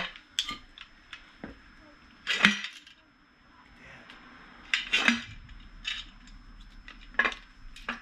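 Steel floor jack cross beam being handled: its steel parts and safety chains clinking and clanking in scattered, irregular knocks, the loudest about two and a half seconds in.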